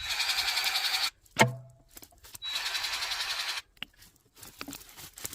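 Grease gun pumping grease into the skid steer's grease fittings in two bursts of about a second each, a fast even pulsing, with a sharp clunk between them.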